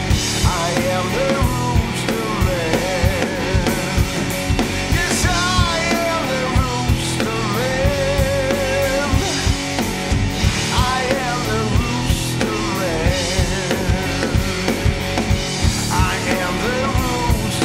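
Blues-rock band playing: a drum kit keeps a steady driving beat under a cigar box guitar, with a wavering melodic line weaving in and out.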